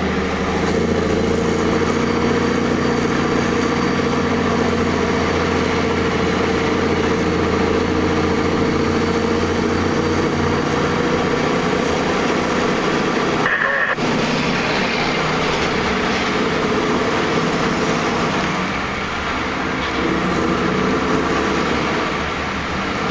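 Heavy haulage truck's diesel engine running steadily, with a brief break about fourteen seconds in.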